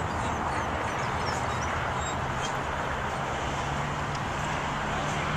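Steady vehicle engine hum with an even rumbling noise and no change in level.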